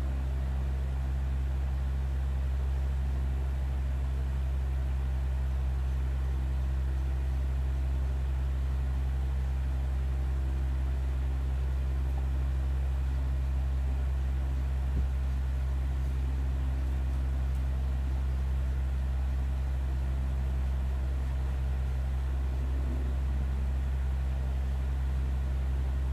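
Steady low droning hum with no change in pitch or level, and a single faint tap about fifteen seconds in.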